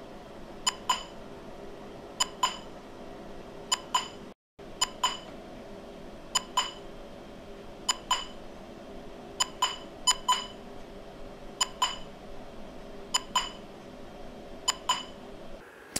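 Clap-test app's short electronic clicks, repeating about every second and a half. Each click is heard twice, about a fifth of a second apart: the microphone track and the same click delayed through the wireless video link. A faint steady hum lies under them, and the sound drops out briefly about four and a half seconds in.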